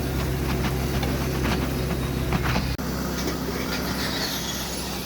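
Heavy machinery engine running steadily, with scattered clicks and knocks over it. A little under three seconds in the sound breaks off abruptly and picks up as a different, slightly quieter engine hum.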